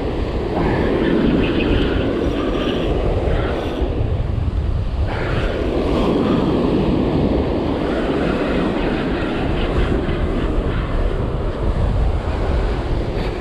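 Wind blowing hard across the microphone, with surf washing up on the beach.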